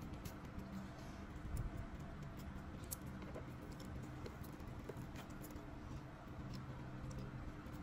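Fingers peeling the leaf wrapping off a nem chua (Vietnamese fermented pork roll): faint rustling with scattered small clicks, over a low steady hum.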